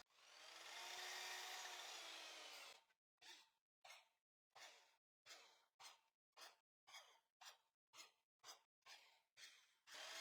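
Faint miter saw: the motor spins up and winds down over about three seconds, then about a dozen short, quick pulses follow in a rapid, even run.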